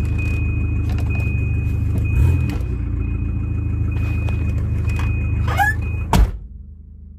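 1990 Volvo 740 engine idling steadily, with its crank pulley slipping on a failed harmonic balancer so the belts are not being driven, while a high warning tone sounds in short repeated pulses. About six seconds in there is a sharp clunk and the engine shuts off.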